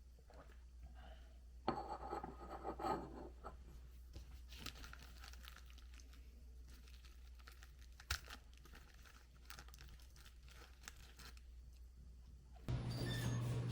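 Quiet rustling and crinkling handling noises, busiest about two seconds in, with a single sharp click near the middle; background music comes in about a second before the end.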